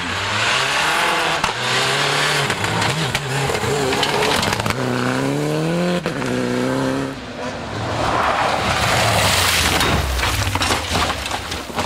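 Rally car engine at full throttle, its pitch climbing through the gears with short breaks at each change. It is followed by a few seconds of loud rushing noise as the car passes.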